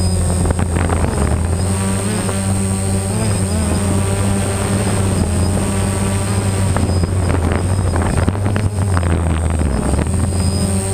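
Quadcopter's electric motors and propellers buzzing steadily, picked up by the camera mounted on the drone itself, the pitch wavering as the motor speeds change.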